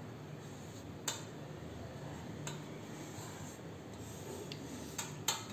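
Felt-tip marker drawing a long line on paper: a faint rubbing of the tip across the sheet, with a few light ticks.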